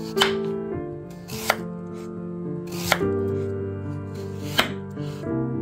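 Kitchen knife slicing through a peeled raw potato and striking the wooden cutting board: four sharp cuts about a second and a half apart, over soft background music.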